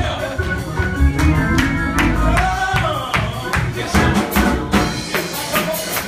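Loud live-band music with a steady beat of drums and percussion over pitched instruments.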